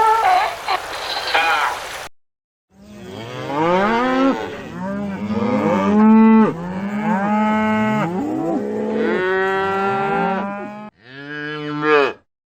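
Cattle mooing: a run of long, overlapping moos that swoop up and down in pitch, ending with a short moo. Before them, for about two seconds, a wavering animal call that cuts off suddenly.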